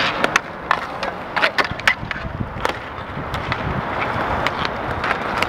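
Inline skate wheels rolling on a roller hockey rink floor, with irregular sharp clacks of hockey sticks and puck.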